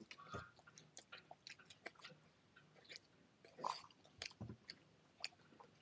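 Faint chewing close to the microphone: irregular small crunches and clicks of food being eaten, with a slightly louder crunch about three and a half seconds in.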